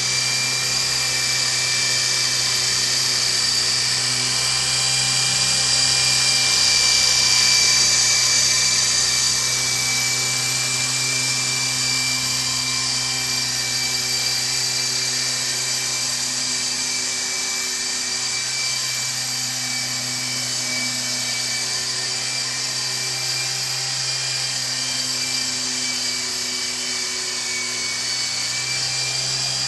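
Nano Lama miniature radio-controlled helicopter flying, its tiny electric motors and rotors giving a steady high-pitched whine that swells a little about seven seconds in.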